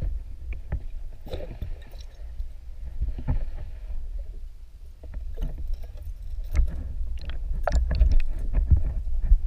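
Muffled sound picked up by a camera under the water: a steady low rumble of moving water with scattered clicks and knocks, growing louder and more frequent about six seconds in.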